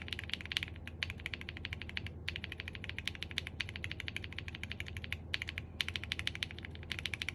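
Fast typing on a custom mechanical keyboard with YOK Panda tactile switches: quick runs of crisp key clacks, broken by a few short pauses.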